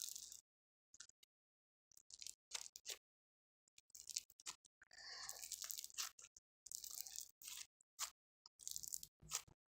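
Slime being squeezed and stretched in the hands: faint, irregular wet clicks and squelches with short pauses between.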